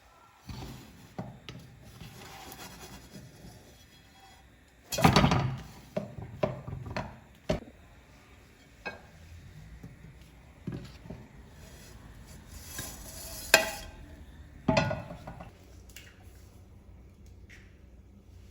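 Dishes, pots and cutlery clattering and knocking together in irregular bursts as they are handled, with the loudest clatters about five seconds in and again around thirteen to fifteen seconds in.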